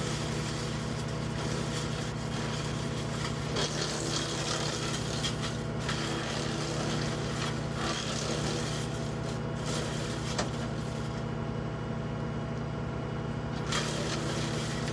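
WoodMaxx WM-8M PTO wood chipper running behind a Kubota L3560 tractor, its engine and chipper making a steady drone. There are several brief bursts of noise as branches go through. The audio is sped up four times, which raises the pitch.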